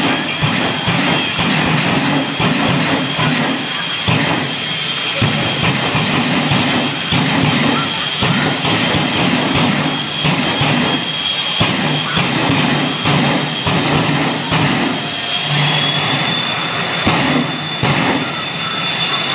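Twin jet engines of a jet-powered drag truck running: a steady, loud rush with a high turbine whine over it. The whine rises slightly about three-quarters of the way through.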